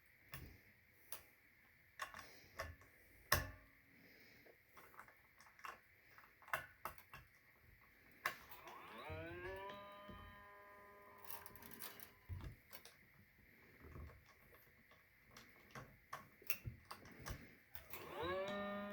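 Small metal clicks and taps of a hex key and detuner hardware being worked on an electric guitar's bridge. Twice the low E string rings out, its pitch gliding up and then holding steady as it is brought back up to tension.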